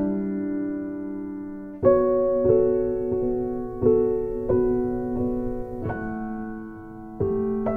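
Background piano music: slow, gentle notes and chords, each struck and left to ring out, with a stronger chord about every two seconds.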